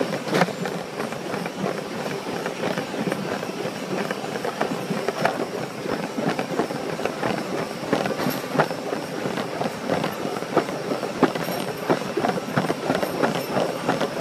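Steady rumbling clatter broken by many irregular knocks and thuds.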